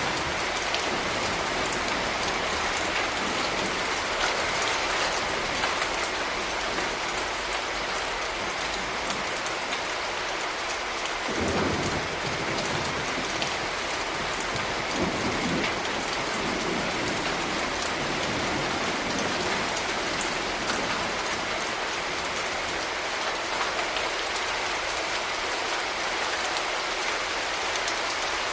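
Steady rain falling on hard city surfaces, an even hiss of drops. Two brief low rumbles rise under it a little before the middle.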